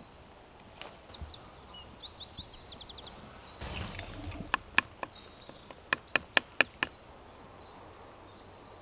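Sharp wooden knocks as a knife is used to tap a carved twig spout into a hole in a birch trunk, setting it for birch-sap tapping: two knocks, then a quick run of five. Small birds chirp in the first few seconds.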